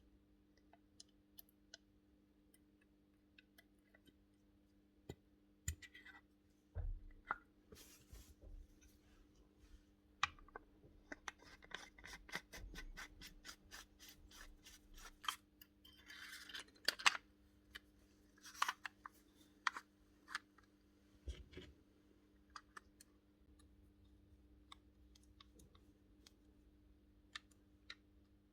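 Parts of a pneumatic pin nailer being handled and fitted back together: scattered sharp clicks, taps and scrapes of small metal and plastic parts, with a quick run of even clicks, about four or five a second, in the middle. A faint steady hum runs underneath.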